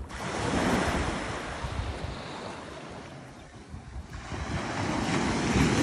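Small ocean waves breaking and washing up the sand, the surf swelling twice, at the start and again about four seconds in, with some wind noise on the microphone.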